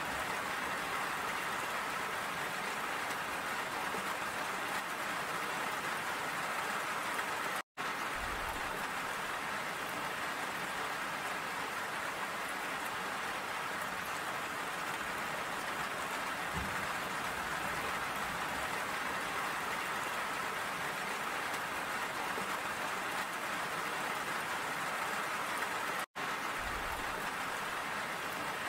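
Steady rain falling, an even wash of drops splattering on wet surfaces. The sound cuts out for a split second twice, about eight seconds in and near the end.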